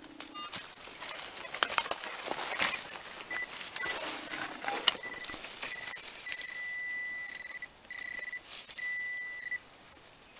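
Crackling and scraping of hands and a tool digging through rotten wood and leaf litter, then from about three seconds in a handheld metal-detecting pinpointer beeps in a steady high tone, first in short pulses, then in longer ones, sounding on metal in the log that turns out to be an old bullet.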